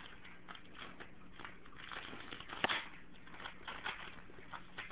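A pug puppy chewing and tugging at sheets of paper, the paper crinkling and rustling in short scattered crackles, with one sharper crackle a little past halfway.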